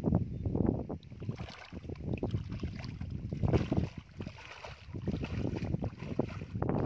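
Bare feet splashing and sloshing through shallow muddy water in uneven steps, with wind noise on the microphone.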